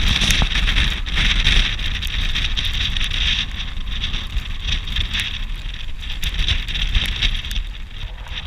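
Storm wind gusting on the microphone with a low rumble, over a steady rushing hiss of torrential rain and water, scattered with sharp ticks.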